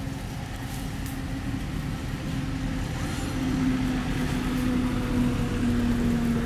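A motor vehicle's engine running: a steady low hum that grows louder and dips slightly in pitch over the last few seconds.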